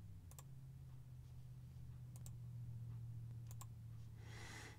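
A few faint clicks at a computer, three of them a second or two apart, over a low steady hum.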